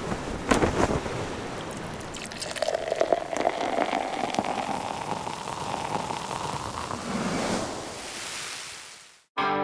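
Beer pouring into a glass, with a fizzing hiss and a tone that rises slowly as the glass fills; it cuts off suddenly near the end.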